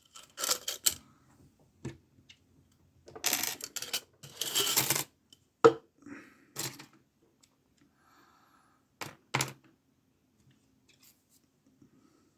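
Small metal lock picks and a little padlock being handled: scattered sharp clicks and clinks, with a longer rattling clatter about three to five seconds in.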